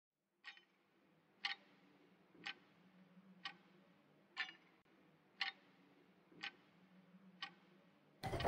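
Clock ticking faintly, one tick about every second, eight ticks in all, over a faint low hum.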